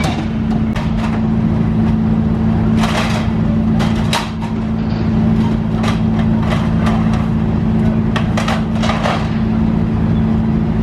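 An engine running steadily underneath, with irregular metal clanks and knocks as the ghost train's steel sections are lifted and handled during the pull-down.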